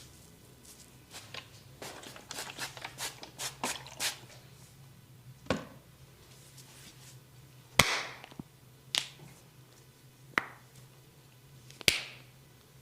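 Barber's hands working during a head massage: a quick run of light taps and rubbing, then five separate sharp hand strikes one to two seconds apart, the loudest about two-thirds of the way in and near the end.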